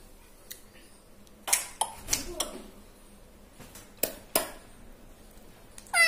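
A rose-ringed parakeet making a few soft, short sounds and two sharp clicks about four seconds in, in a lull between its loud calls; a loud call starts at the very end.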